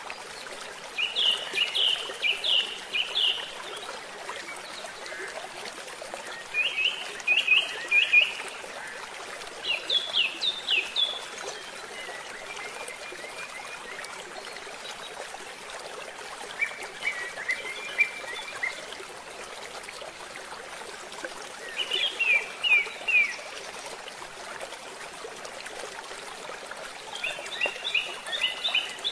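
A songbird singing short phrases of quick, high repeated notes, one every few seconds, over the steady rush of a flowing river.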